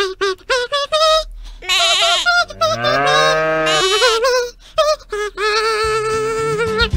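High-pitched cartoon character voices humming a wordless tune: a quick run of short notes, then long wavering held notes, one bending up and back down in the middle.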